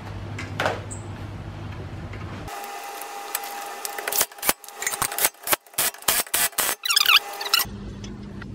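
Cordless impact wrench running the nuts down on a bolt-on wheel spacer at a rear hub, whirring and then hammering in a string of short bursts from about four seconds in. A light metal clink about half a second in.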